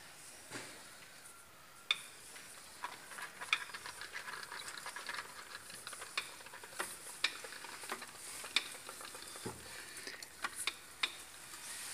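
A cylinder liner puller and metal tools being handled on an engine block: scattered sharp metallic clicks and clinks, with a stretch of scraping in the middle and a duller knock near the end.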